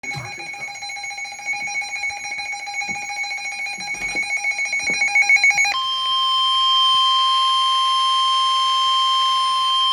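Emergency Alert System alert tones: a fast-chattering, pulsing alert tone for about six seconds, then an abrupt switch to one steady alarm tone, the long warning tone of NOAA Weather Radio that comes before a warning message.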